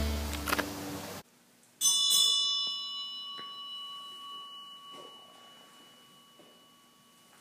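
A bell struck once, about two seconds in, its clear ringing tones fading slowly over the following several seconds. Before it, outdoor wind rumble on the microphone cuts off abruptly.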